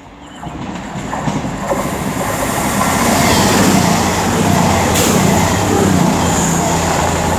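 CrossCountry Class 221 Super Voyager diesel multiple unit passing through fast, its underfloor diesel engines and wheels on the rails swelling about half a second in to a loud, steady rush that holds to the end.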